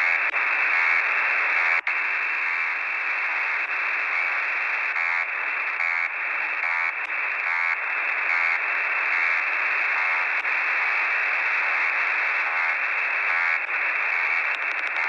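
Shortwave receiver audio in upper-sideband mode on 17730 kHz: a steady band of static hiss with faint pulses repeating less than a second apart, a signal taken for one of the new Russian 'Buzzer' transmissions. There is a brief dropout about two seconds in.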